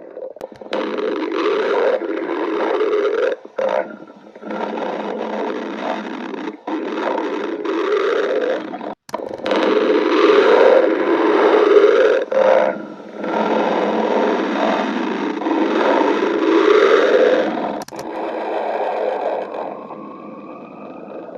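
Stomach growling loudly in long, wavering gurgling rumbles, broken by several short pauses.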